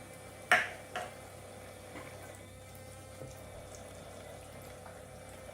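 Toy sink's small electric pump running, with a steady trickle of water from its faucet and a faint steady hum. Two sharp clacks about half a second and a second in, with lighter taps later.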